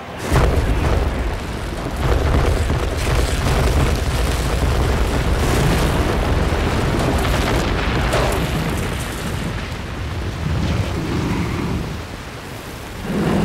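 Deep rumbling roar of a World Trade Center tower collapsing, starting suddenly and staying loud for about twelve seconds before it fades near the end.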